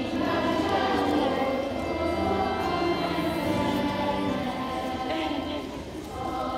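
A choir singing a song, with a short dip between phrases near the end.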